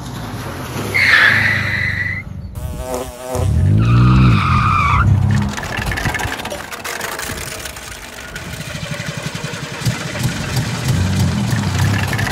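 A small hatchback car driving along a flooded lane, its engine running and its tyres swishing through the standing water as it comes closer, louder toward the end. Near the start there are two loud high whines about three seconds apart, the second with the engine revving.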